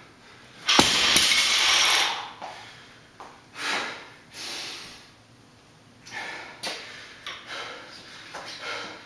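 A 100 lb barbell loaded with bumper plates is dropped from overhead onto a concrete floor about a second in. It hits once hard, then clatters for about a second and a half as the bar and plates rattle and settle. Hard breathing follows in short, separate bursts.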